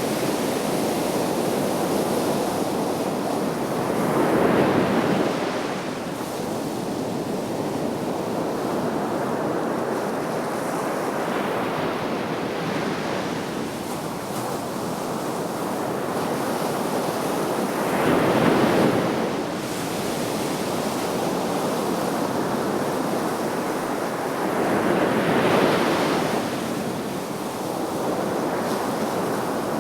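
Sea waves breaking on a shore under a steady wash of surf. Louder swells come about four seconds in, about eighteen seconds in, and near the end.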